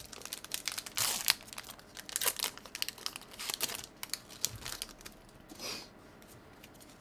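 Foil wrapper of a Yu-Gi-Oh! Legendary Duelists booster pack crinkling and tearing as it is ripped open by hand, with the loudest crackle about a second in; the crinkling dies away after about four and a half seconds.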